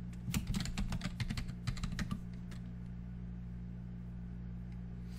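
Typing on a computer keyboard: a quick run of keystrokes lasting about two seconds, as a password is entered at a prompt, then it stops. A steady low hum runs underneath.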